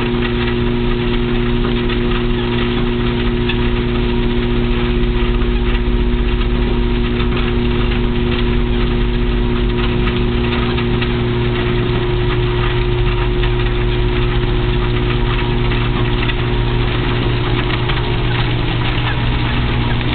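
Motorized treadmill running steadily at 3.0 mph, a constant motor hum with the belt turning under a walking dog.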